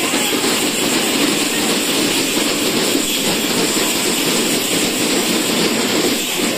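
Loud, steady, dense clatter of festival drumming with the din of a crowd close around.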